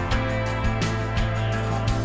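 Background music with sustained bass notes and a steady beat about twice a second.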